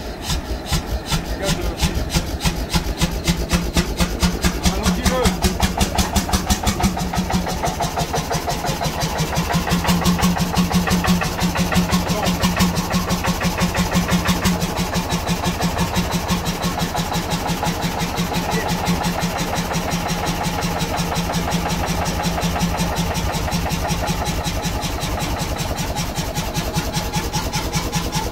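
Ballot 1SD single-cylinder hot-bulb semi-diesel engine running on its first start, firing in a steady rapid beat of several strokes a second.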